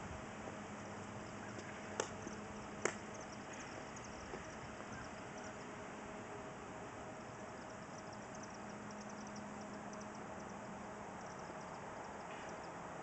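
Steady outdoor background noise with faint high chirping throughout, broken by two sharp clicks about a second apart, a couple of seconds in.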